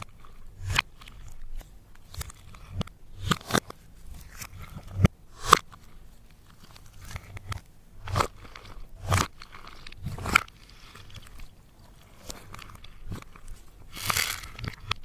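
Slime being worked by hand with crushed makeup and glitter mixed in, giving irregular sharp crackling pops and squelches, with a longer stretch of crackling near the end.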